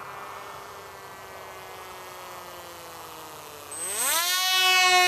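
Homemade foam RC plane's electric motor and propeller whining overhead, its pitch sinking slowly. About three and a half seconds in it gets much louder and the pitch climbs steeply as the plane sweeps in low past.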